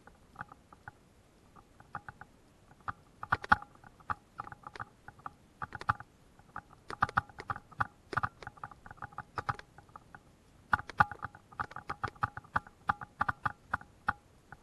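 Footsteps on a boardwalk of loose wooden planks: irregular clusters of knocks and clatter, with a slight ring, as the boards shift underfoot.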